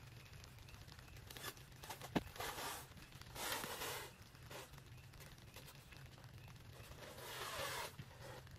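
Clear plastic stretch wrap being pulled off its roll and wound over a wooden pole, crackling in three long pulls: about two and a half, three and a half and seven and a half seconds in. A sharp click just after two seconds in.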